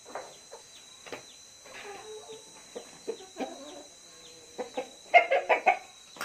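Chickens clucking in short separate calls, with a run of louder clucks about five seconds in.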